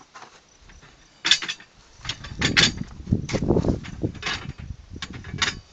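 Steel falling-plate targets being handled and set up: several sharp metallic clanks with rattling and scraping between them.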